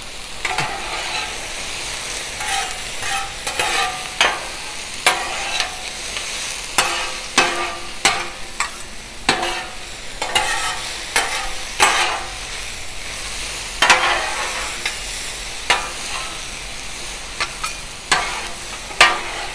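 Vegetables sizzling in clarified butter on a Blackstone steel flat-top griddle, with the repeated clack and scrape of two metal spatulas tossing and chopping them against the griddle top at irregular intervals.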